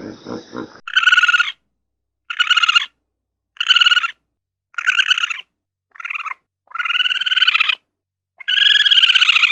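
An animal calling seven times in a row. Each call lasts half a second to a second, has a fluttering, nasal tone, and is followed by a short silence.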